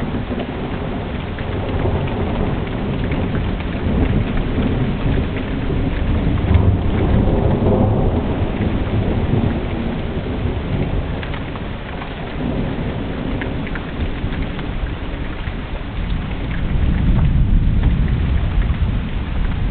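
Thunderstorm: rain falling steadily while rolling thunder rumbles, swelling about four to eight seconds in and again near the end.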